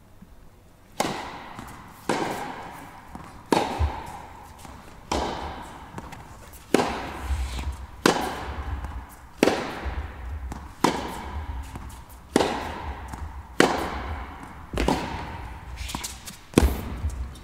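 Tennis rally on an indoor court: rackets striking the ball back and forth with the ball bouncing between, a sharp pop about every second and a half, each echoing in the hall.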